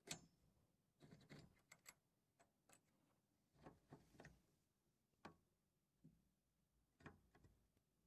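Faint metallic clicks and knocks, about a dozen at irregular intervals, the sharpest just at the start: a key being worked in and out of a round custom-made padlock, and the lock handled against a steel door.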